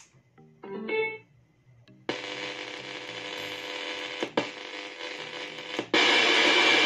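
T&G TG117 portable speaker in FM radio mode giving out loud radio static, an even hiss with a faint hum, with no station coming through for lack of signal. The hiss cuts out briefly twice and gets louder near the end, as the radio steps between frequencies. A short electronic prompt sound from the speaker comes about a second in.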